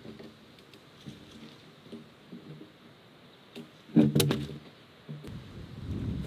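Peeled log being slid over a wooden stump, first with faint scraping and ticking. About four seconds in there is a loud hollow wooden knock that rings briefly, followed by a low scraping rumble as the log moves on.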